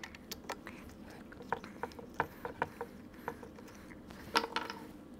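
Faint, irregular small metal clicks and ticks of a 1/8-inch Allen wrench backing the foot-stirrup locking screws out of a crossbow riser, a few louder clicks a little after four seconds.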